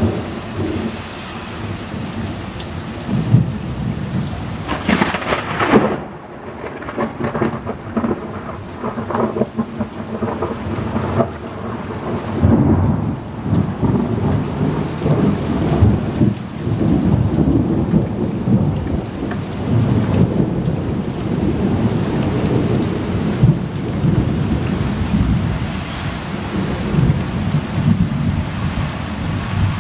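Thunderstorm: steady rain falling, with a sharp thunderclap about five seconds in followed by long, low rumbles of thunder.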